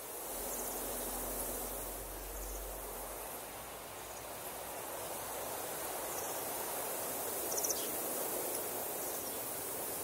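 Steady rush of flowing river water, with faint, short, high chirps a few times.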